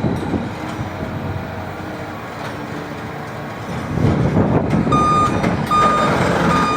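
Forklift reversing alarm beeping: a steady high tone repeated a bit more than once a second, starting about five seconds in, over a rumble of vehicle noise that swells about a second earlier.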